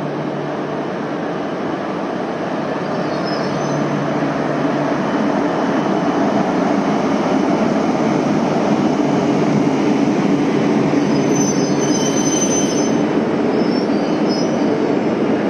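Yamagata Shinkansen E8 series Tsubasa train running into the station platform: a steady rumble that grows gradually louder, with brief high wheel squeals about four seconds in and again about two-thirds of the way through.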